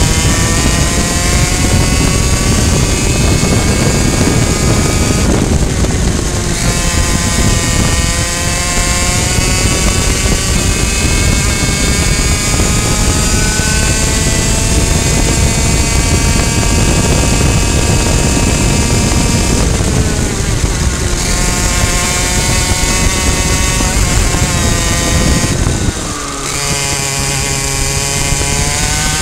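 Two-stroke racing kart engine running hard at high revs, its pitch climbing steadily along the straights, dipping briefly twice when the throttle is lifted for corners, and falling to a lower note near the end, over a steady rush of wind noise.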